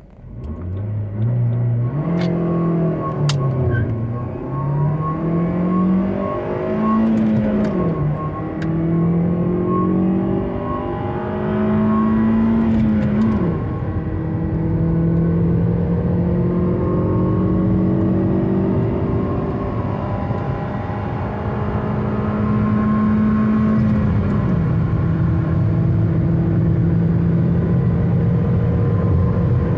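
Ford Focus Mk1's 1.6-litre 16-valve four-cylinder petrol engine accelerating hard, heard from inside the cabin. The engine note climbs steadily and drops back sharply at each upshift, several times, then holds high near the end.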